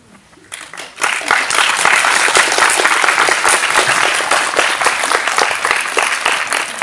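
Audience applauding: a few scattered claps, then full applause from about a second in, beginning to thin near the end.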